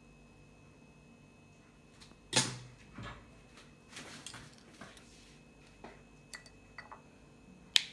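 Household objects being handled: a sharp click about two and a half seconds in and a softer knock just after, some rustling, light ticks, and another sharp click near the end.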